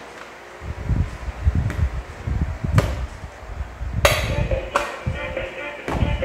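Plastic toy dog knocked and bumped against a high-chair tray: several sharp knocks with dull thuds between them. About four seconds in, a toy tune starts playing.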